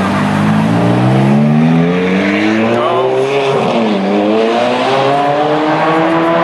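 Ferrari 430 Scuderia Spider 16M's V8 accelerating hard away, loud, its note climbing through the revs, dropping with an upshift about four seconds in, then climbing again.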